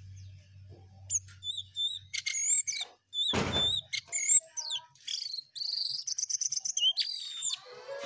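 Caged jongkangan songbird singing vigorously: a varied run of clear whistled notes, slurred up-and-down glides and quick repeated trills, with a loud harsh noisy burst lasting about half a second a little past the midpoint. Guitar music comes in right at the end.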